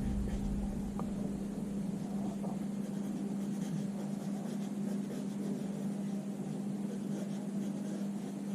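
A steady low hum over an even hiss, with the faint scratch of a coloured pencil sketching on paper.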